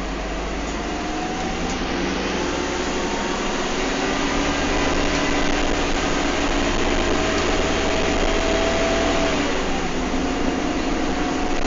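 Bus engine and transmission heard from inside the saloon while accelerating, a whine rising slowly in pitch for about nine seconds. The whine drops suddenly near the end, as at a gear change, then holds steady.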